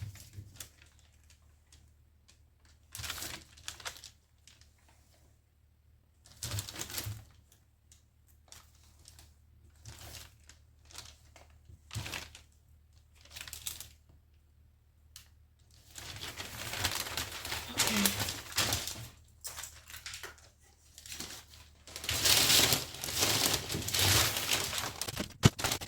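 Pattern paper rustling as a ruler and pattern curves are laid down and moved over it while lines are drawn, in irregular bursts, busiest over the last ten seconds.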